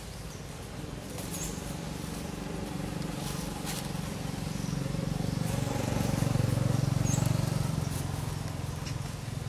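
Low engine hum of a passing motor vehicle, growing louder toward the middle and easing off near the end, with a few short high chirps over it.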